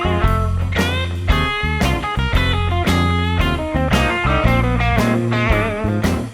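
Background music: rock with electric guitar lead over bass and drums, with a steady beat.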